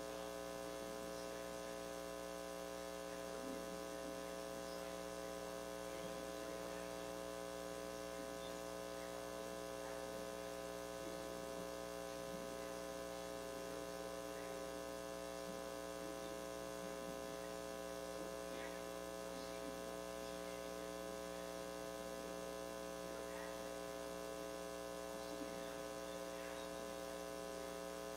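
Steady electrical mains hum in the sound system, buzzy with many overtones and unchanging throughout.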